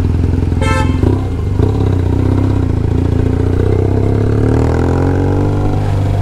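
BMW R1200GS boxer-twin engine running under way, rising in pitch as the bike accelerates over the last couple of seconds.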